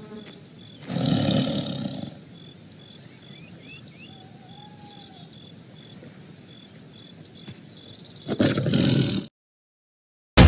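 Tiger roar sound effect, heard twice: about a second in and again near the end, each lasting about a second. Faint birds chirp in between.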